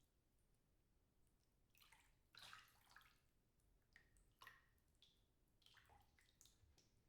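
Faint, intermittent splashing of birds bathing in a birdbath: a cluster of short splashes about two seconds in, then several more from about four to six and a half seconds.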